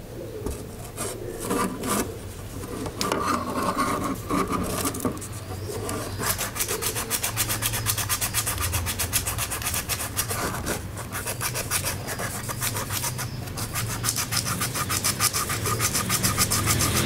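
Small square of sandpaper rubbed by hand along a rusted steel sewing-scissor blade, scraping the rust off. The strokes are slower and uneven at first, then become quick, steady back-and-forth strokes about six seconds in.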